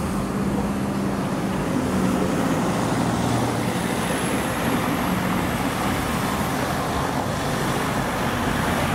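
Road traffic: a motor vehicle's engine running with a steady low hum over the general noise of passing traffic, and a faint high whine rising slowly midway.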